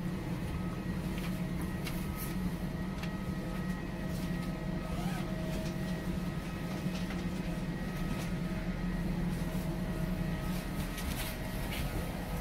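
Steady low machinery hum inside a boarding jet bridge, with faint steady whining tones above it and scattered light clicks.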